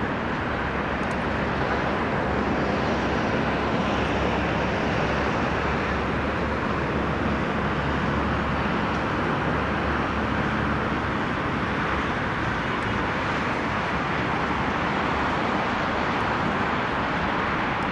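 Steady wash of city traffic noise heard from high above the streets, with no distinct events; a low rumble underneath eases about eleven seconds in.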